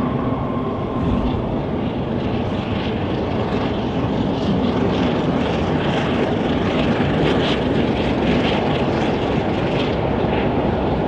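Steam locomotive passing at speed with a charter train: a steady roar of exhaust and wheels on rail. A whistle note dies away in the first second.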